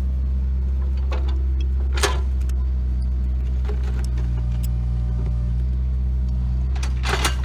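An engine idling steadily with a low, even hum, with a few sharp knocks about two seconds in and near the end.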